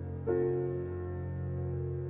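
Calm, slow piano background music over a held low drone, with a new chord struck about a quarter of a second in.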